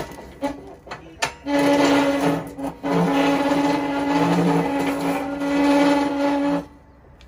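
Hand-cranked winch of a chain-hung grill whirring steadily as the handwheel is turned to lower the grate toward the coals for more heat. A few sharp clicks come first, then the whir with a steady hum runs, with short breaks, until it stops near the end.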